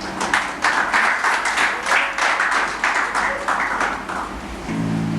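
Audience applauding, the claps thinning out toward the end; just before the end, instrumental music begins with a steady held low chord.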